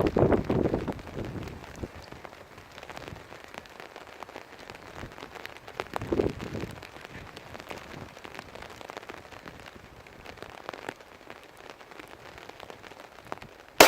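Steady rain with a gusty rush on the microphone, louder near the start and again about six seconds in. Right at the end, a single sharp shot from a Glock 21 .45 ACP pistol.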